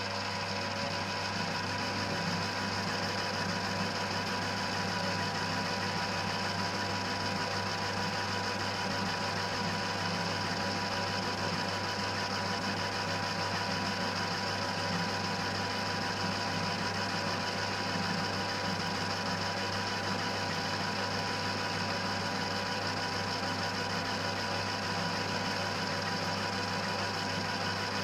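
1940s Colchester lathe running steadily under power, with a constant mechanical hum and whir from its motor and drive and no change in speed. Its spindle turns in tapered bronze bushings fed by newly fitted oilers.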